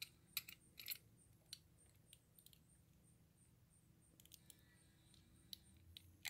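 Near silence broken by a few faint, scattered clicks of a die-cast toy car's loose base and metal body being handled and pressed together.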